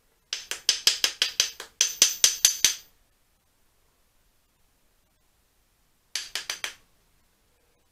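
Small hammer tapping a deformed steel carburettor inlet-rubber clamp over a steel tube. A quick run of about fifteen light, ringing metallic taps, about six a second with a brief pause, then about five more later on. The twisted clamp is being dressed back into shape.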